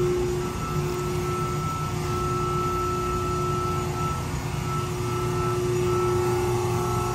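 Steady machine hum with a constant whine, typical of the CNC press brake's drive running at idle.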